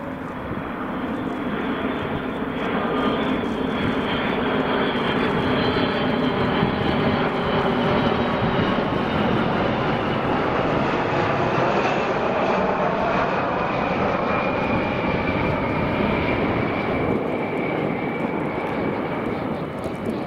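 Four CFM56 turbofan engines of a KC-135R Stratotanker at approach power as the tanker flies low past on landing. The engine noise builds over the first few seconds, holds steady, then eases near the end, with a whine that falls in pitch as the jet goes by.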